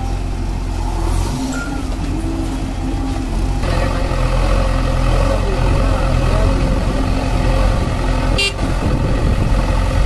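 Diesel engine of a JCB 3DX backhoe loader running steadily, getting louder and fuller about a third of the way in. A short high beep sounds near the end.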